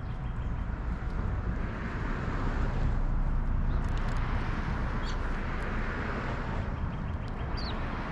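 Outdoor ambience with a low steady rumble, and road noise that swells and fades again as a vehicle passes. A couple of short, faint bird chirps come in over it, about five seconds in and again near the end.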